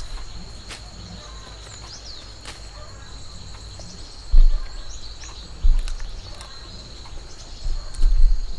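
Insects droning steadily at a high pitch, with a few short bird chirps. Loud low thumps come about four, five and a half and eight seconds in.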